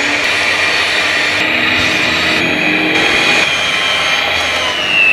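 Electric mixer running steadily as it kneads a stiff yeast bread dough, its motor whine rising slightly in pitch near the end.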